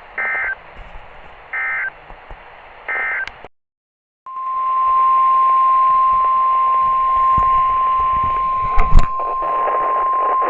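NOAA Weather Radio Emergency Alert System signal: three short screeching bursts of SAME digital data tones, a moment of silence, then the steady 1050 Hz weather radio warning alarm tone, which marks the start of a new warning. A couple of loud thumps sound about nine seconds in, under the tone.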